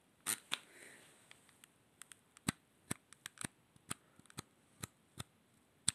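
A run of sharp, irregular clicks, about fifteen of them, as a headphone headband's size adjuster is slid notch by notch to the fourth setting.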